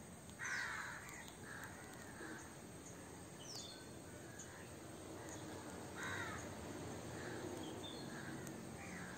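Crows cawing a few times over a quiet outdoor background, loudest about half a second in and again about six seconds in, with faint chirps from other birds.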